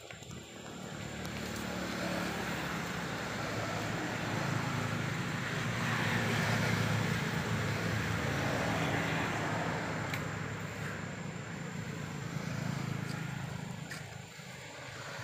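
Engine noise of a passing vehicle, swelling slowly to a peak about halfway through and fading away again.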